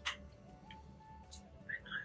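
Faint background music with a slow, simple melody, with a few short clicks of spoons against dessert glasses.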